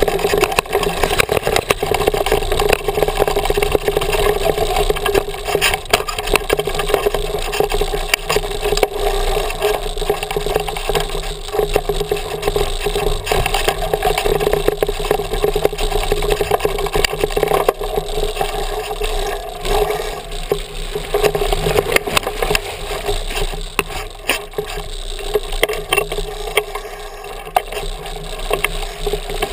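Mountain bike rolling over a rocky creek bed, heard through a handlebar-mounted GoPro: continuous rattling and knocking of the bike and camera mount over the rock, mixed with tyre noise. It eases a little near the end.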